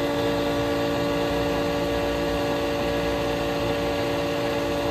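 Electric motor and fuel pump of a kidney-loop filter cart running steadily, circulating diesel through a water-absorbing filter and back into the tank: an even hum with several steady tones over a rushing background.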